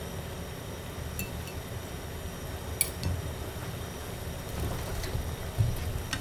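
A few light clinks and taps of dishware as cooked salmon heads are picked apart by hand in a pot, with a dull knock near the end, over a steady low rumble.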